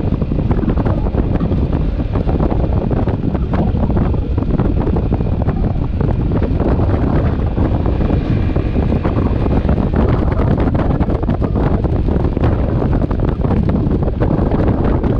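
Steady wind rush on the microphone of a moving motorcycle, with the motorcycle's running and road noise beneath it.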